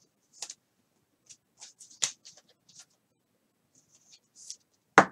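Trading cards being handled: scattered soft rustles and clicks, with a sharper click about two seconds in and a louder cluster of clicks at the very end.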